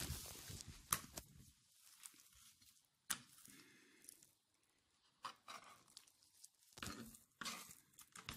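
Raw trout flesh being cut and peeled from the skin and bones on a plastic cutting board: faint, irregular wet tearing and handling noises, with a few sharp clicks.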